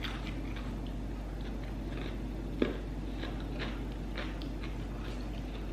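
Chewing crunchy raw vegetables, a run of crunches about twice a second, with one sharp click about two and a half seconds in, over a low hum.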